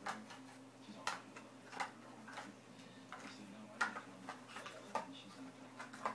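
A series of light, sharp clicks or taps at uneven spacing, about two a second.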